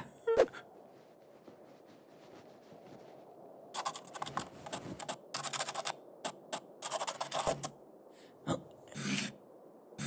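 Pencil scratching across a rough wall in quick, short strokes as a picture is drawn, in a run of bursts from about four seconds in. A short sharp sound comes just after the start.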